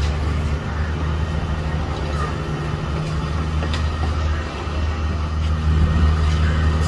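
Perkins four-cylinder diesel engine of a PEL-JOB 256 mini wheel excavator running steadily as the machine drives, a deep even hum that grows louder about six seconds in as it comes closer.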